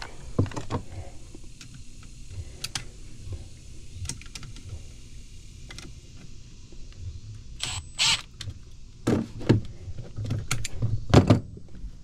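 A cordless impact driver and a wrench working the mounting bolts on a blower motor's bracket: metal clicks and clanks of tools on the bolts, with two short whirrs of the driver a little before the 8-second mark. The louder clanks come near the end.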